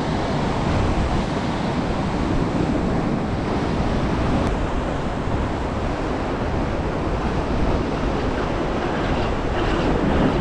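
Sea surf washing steadily, with wind buffeting the microphone.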